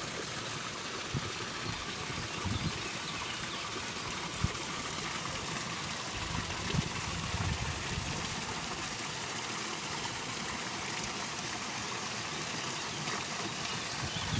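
Water falling steadily over a small garden waterfall into a pond: an even splashing rush. A couple of faint low knocks stand out briefly.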